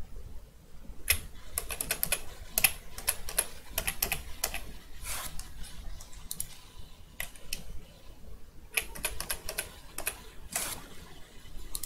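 Computer keyboard keys clicking in irregular clusters with a sparser pause in the middle: Shift and arrow-key shortcuts being pressed.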